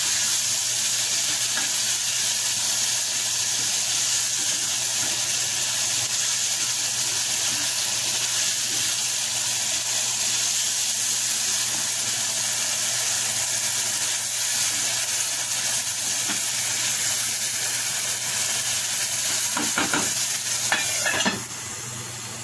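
Onion-tomato masala sizzling steadily in hot oil in a steel pan while a wooden spatula stirs it. Near the end there are a few knocks, and the sizzle drops sharply as the pan is covered with its lid.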